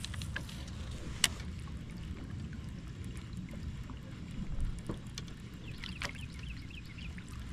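Wind rumbling on the microphone and water lapping against a kayak hull, with a single sharp click about a second in.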